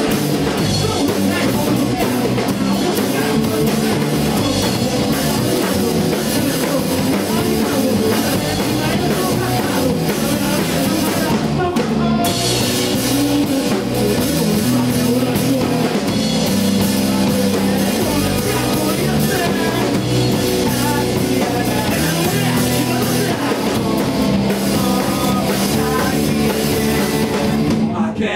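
Live rock band playing: drum kit, electric guitar and electric bass, with a lead vocalist singing into a microphone and the bassist joining in near the end. The high end drops out briefly about twelve seconds in.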